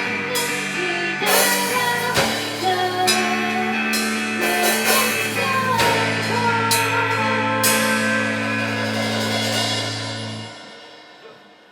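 A song with singing over drums and cymbal crashes, its final held chord dying away near the end.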